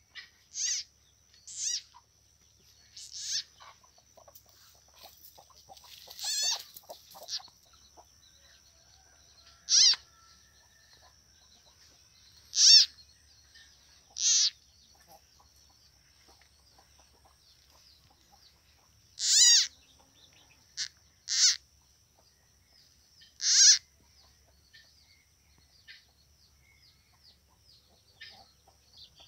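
Short, high-pitched animal calls, repeated about a dozen times at irregular gaps, over a faint steady high-pitched tone.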